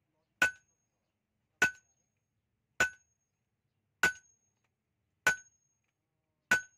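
Hammer blows on an anvil, six evenly spaced strikes about one every 1.2 seconds, each with a short metallic ring.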